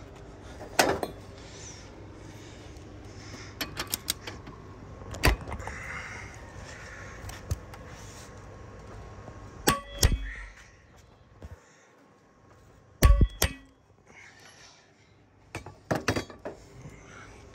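Metal hand tools and parts being handled at a steel bench vise: scattered clanks, clinks and knocks, with the two loudest knocks about ten and thirteen seconds in. The impact wrench is not running.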